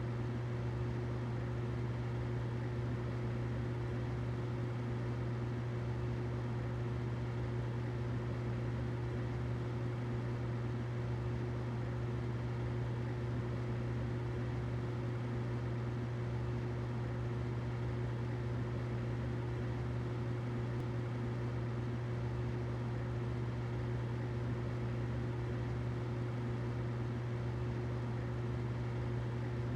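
Humidifier running steadily: a low hum with a soft hiss of noise over it.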